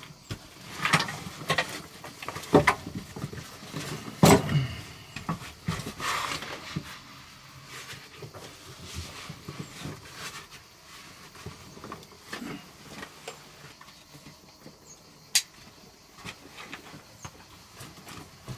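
Backpack being packed and shouldered: rustling of fabric and straps with several knocks of gear, loudest in the first few seconds, and a sharp click about fifteen seconds in. Lighter steps on a stone and gravel floor near the end.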